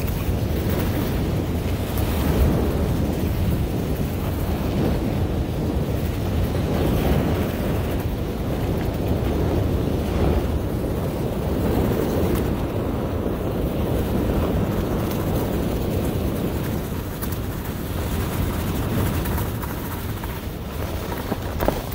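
Wind rushing over the microphone during a fast downhill run on a groomed ski slope, mixed with the steady hiss of edges sliding over packed snow. The noise is loud and low and dips slightly near the end.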